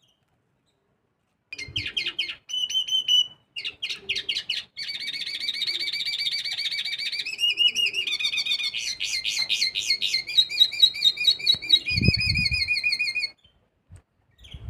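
Mixto, a canary-hybrid finch, singing a long varied song of chirps and fast rattling trills. The song starts about a second and a half in and stops shortly before the end. A low thump comes about twelve seconds in.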